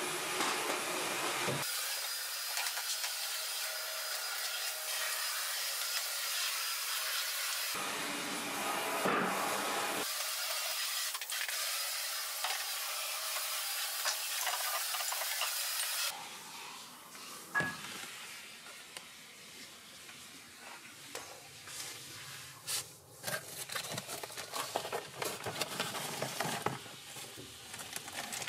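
Cordless stick vacuum cleaner running steadily for about the first sixteen seconds, then it stops. After that come quieter scattered clicks and rustling.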